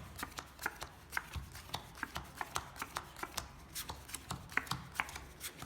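Playing cards being handled and dealt onto a table: a steady run of short, light snaps, about four a second.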